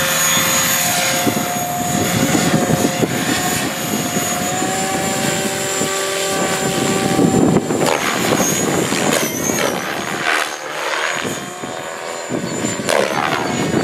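600-size RC helicopter (HobbyKing HK600) in flight: a steady whine from its rotor and motor that shifts in pitch about eight seconds in as it manoeuvres, and dips a little as it flies off. Strong wind buffets the microphone.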